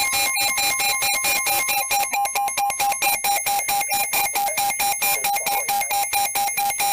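Emergency Alert System attention signal: a loud steady two-tone alarm (about 850 and 960 Hz) with a fast regular pulsing flutter, starting and stopping abruptly.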